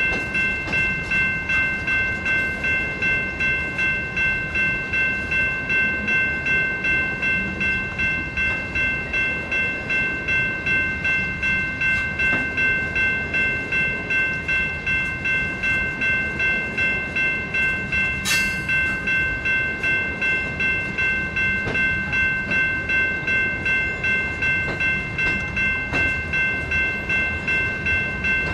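Railroad crossing bell ringing steadily, about two strikes a second, over the low rumble and wheel clatter of a long freight train of covered gondola cars rolling past. A single sharp clank about eighteen seconds in.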